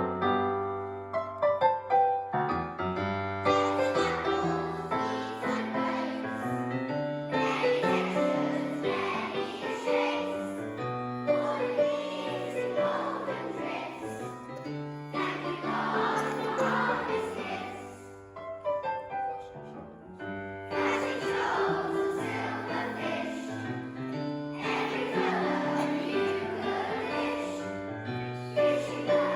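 Music: a choir singing a song with piano accompaniment, the piano alone for the first few seconds before the voices come in.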